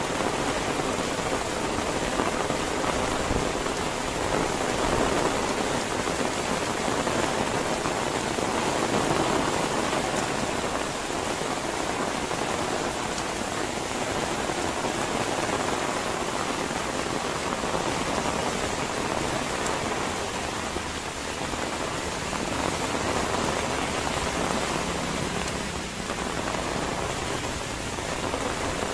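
Steady, heavy rain falling: a dense, even hiss of drops with no break or change.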